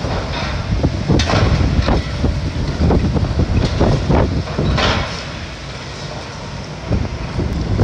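Building demolition: a low steady machine rumble with repeated crashes and scrapes of debris and metal being torn down, several in the first five seconds, then quieter for a moment near the end.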